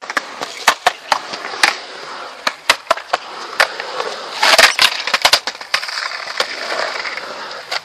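Skateboard rolling on a concrete mini ramp, wheels hissing over the surface, with repeated sharp clacks of the trucks and board hitting the coping and concrete. The loudest clatter comes a little past the middle.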